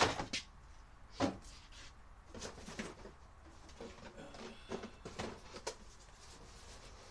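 A sharp knock, another about a second later, then a run of lighter clicks, taps and rustling: objects being handled, shifted and set down.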